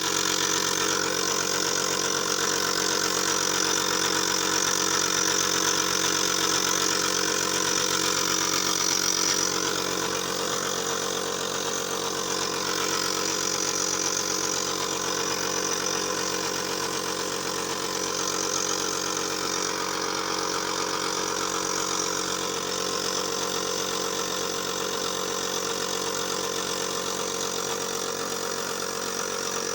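Electric inhalation machine for a child's cold and cough running steadily: a constant motor hum with a hiss of air or steam over it.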